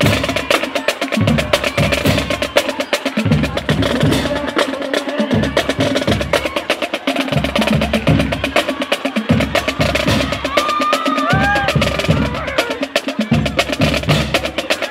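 Percussion-heavy music: rapid wood-block-like clicking over groups of deep drum beats, with a short rising-and-falling melodic tone about ten seconds in.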